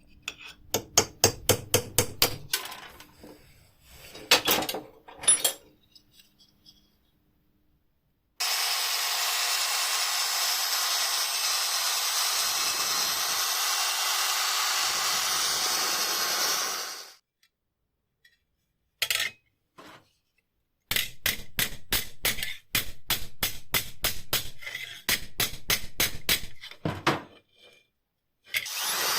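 Rapid sharp metallic clicks, then a power tool runs steadily for about eight seconds with a low hum that dips and dies away before it stops, then more runs of quick clicks.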